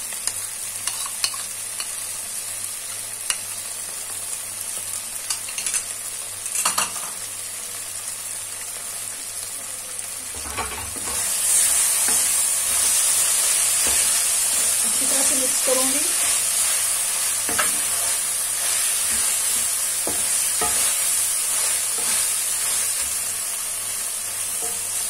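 Chicken, cabbage and capsicum sizzling in a hot pan while being stirred with a wooden spoon, with scattered knocks and scrapes of the spoon against the pan. The sizzle grows clearly louder a little under halfway through and stays so.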